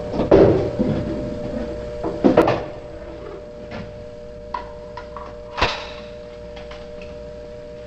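Clunks and knocks as a Thompson submachine gun is taken out and handled, the loudest in the first couple of seconds, then lighter clicks and one sharp click about two-thirds of the way in. A steady hum runs underneath.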